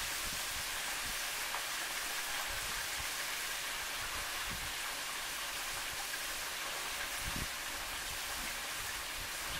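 Flour-dredged pork chops frying in hot oil in a skillet: a steady sizzle.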